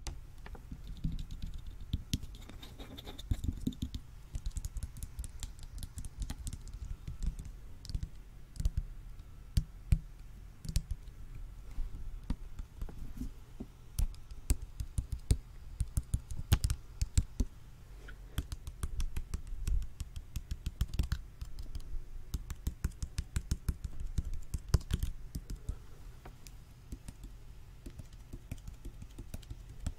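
Fingertips and nails tapping and scratching on a small plastic water bottle close to the microphone: a quick, irregular run of sharp clicks that keeps going, now denser, now sparser.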